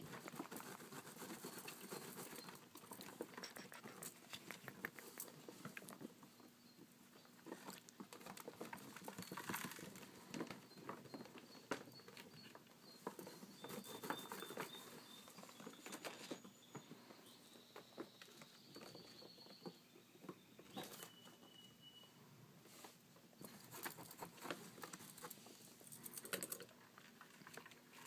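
Faint scuffling and pattering of a small pet rodent scrambling about on a fleece blanket and being handled, with many small clicks and rustles. A few faint, short high tones sound in the middle.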